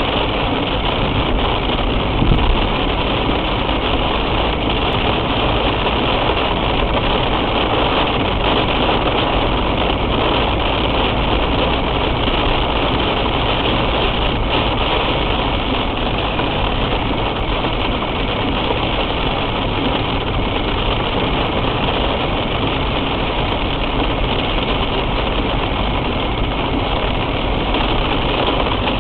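Steady noise of a car in heavy rain, as picked up by a dashcam: rain on the car mixed with the car's engine running, even and unbroken throughout.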